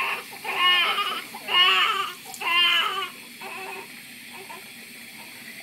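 Newborn baby crying: three loud, high wails in the first three seconds, then weaker whimpering cries, while his head is washed under a running tap. Faint running water from the faucet underneath.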